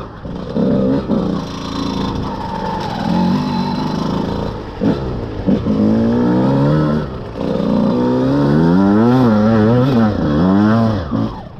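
Enduro dirt-bike engine revving up and down as the rider works the throttle climbing a loose, leaf-covered trail. The pitch wavers quickly in the last few seconds, then falls off just before the end.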